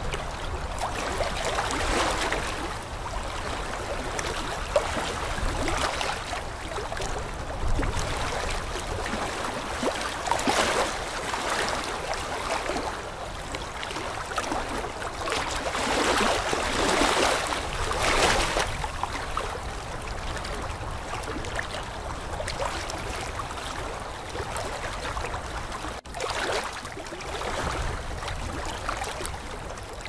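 Aquarium air-driven sponge filter bubbling, with water gurgling and splashing where the bubbles break the surface: a steady watery wash that swells louder now and then.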